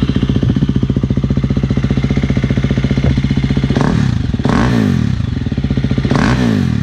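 2017 Husqvarna FE350's single-cylinder four-stroke engine idling through an FMF 4.1 titanium/carbon-fibre slip-on exhaust with the spark arrestor removed. It is revved twice: engine speed rises and falls about four seconds in, and again around six seconds.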